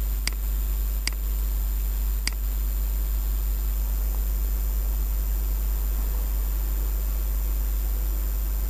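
A steady low electrical hum and hiss in the recording, with three short computer-mouse clicks in the first few seconds.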